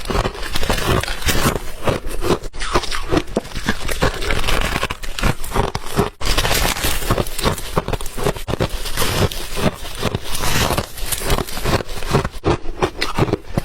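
Ice being bitten and chewed close up, a dense run of loud crunches and crackles, with a brief break about six seconds in.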